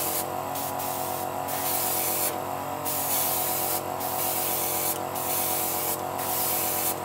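Airbrush spraying silver acrylic paint: a high hiss that breaks off briefly about once a second as the trigger is let go and pressed again. Underneath runs the steady hum of an Iwata airbrush compressor.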